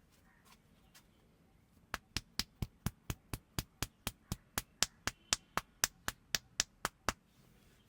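A barber's hands striking the head in a fast tapping head massage: about twenty sharp slaps at roughly four a second, starting about two seconds in and stopping abruptly about five seconds later.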